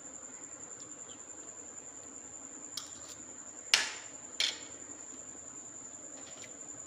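Sewing machine running steadily, a fast even rhythm with a constant high whine. A little under four seconds in, a metal spoon clicks sharply twice against a ceramic plate, about half a second apart.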